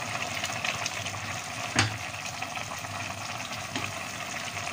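A pot of bubbling, sizzling broth with chicken while a spatula scrapes liver off a plate into it, with a sharp knock about two seconds in.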